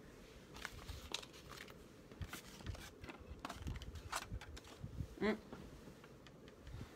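Faint scattered rustles and light taps as hands shuffle paper and card stock about on a desk, with a brief murmur about five seconds in.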